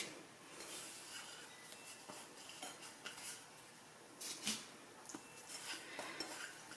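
Quiet kitchen handling sounds of catfish fillets being dredged in corn flour in a bowl: soft rubbing and light clicks as pieces are pressed into the flour and the bowl is steadied, with a slightly louder scrape a little over four seconds in.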